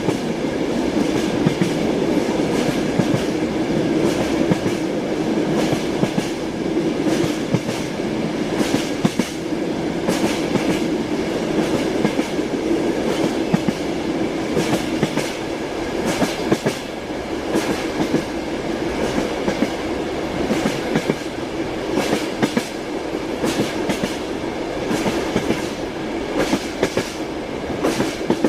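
A moving train's wheels clacking over the rail joints, irregular sharp clicks over a steady rumble with a low hum from the running train.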